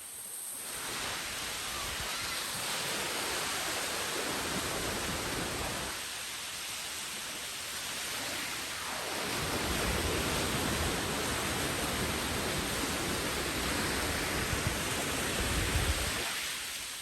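Surf breaking and washing up a sandy beach: one long wave surge that fades about six seconds in, then a second, larger one from about nine seconds in, with a low rumble near its end.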